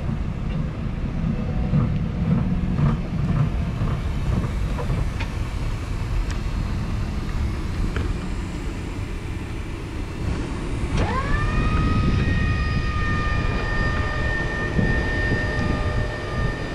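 Yale NR035A3 electric reach truck: a low rumbling noise as it moves for the first ten seconds. Then, about eleven seconds in, an electric motor whine rises quickly and holds steady in several pitches: the hydraulic pump motor running as the mast lifts the forks.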